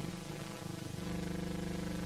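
Background music of sustained low notes that change about a second in, over the faint steady hiss of an old optical film soundtrack.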